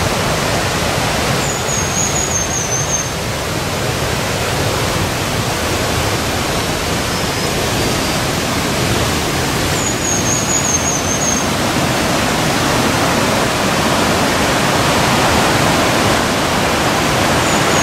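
Steady rush of a fast whitewater mountain river running over rocks, a little louder in the second half. A short, high warbling call sounds three times, about eight seconds apart.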